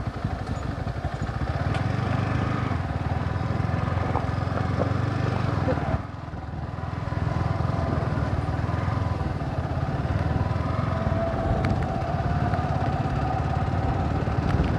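Yamaha R15's single-cylinder engine running as the bike is ridden, heard from the rider's seat. The throttle eases off briefly about six seconds in, then the engine picks up again with a faint rising whine.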